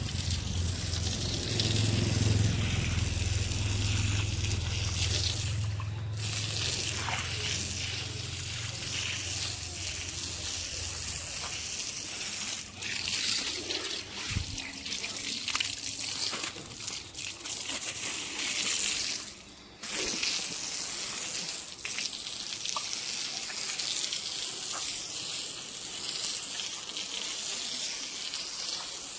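Heavy rain and running water, a steady dense hiss, with a low hum under it for roughly the first twelve seconds.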